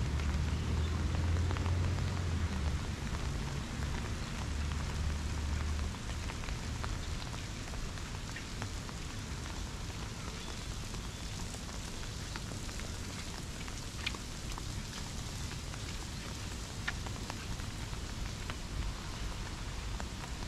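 Steady rain falling on wet paving and trees, with a few sharp close drips. A low rumble under the rain fades out about six seconds in.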